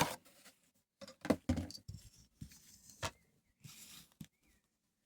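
Handling noise: a string of sharp clicks and knocks from small hard objects being picked up and set down, with a brief rustle near four seconds, then quiet.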